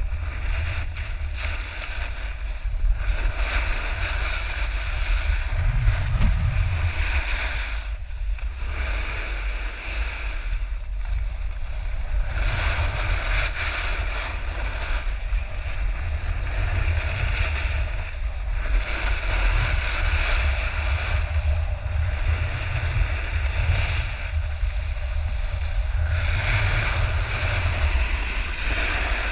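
Wind buffeting an action camera's microphone as a low rumble, under the hiss of a snowboard's edge scraping across packed snow, swelling and fading every few seconds as the rider carves from turn to turn.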